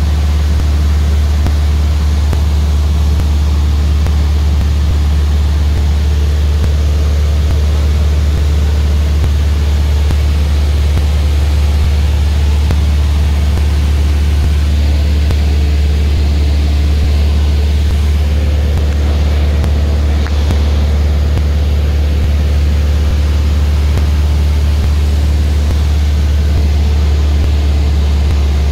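Glastar light aircraft's piston engine and propeller running steadily in flight, heard from inside the cabin as a loud, unbroken drone with a strong low hum.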